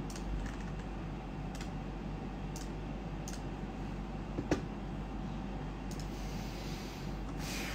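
A few sparse computer keyboard clicks, with one sharper click about four and a half seconds in, over a steady low hum.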